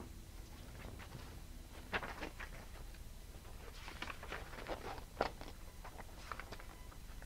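Paper pages of a small instruction booklet rustling and flicking as it is picked up and leafed through: a few crisp rustles about two seconds in, then a denser run of page flicks from about four to five and a half seconds.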